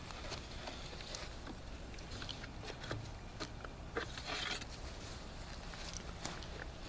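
Quiet handling noises from reloading a potato cannon: scattered small clicks and scrapes, with a short hiss about four seconds in.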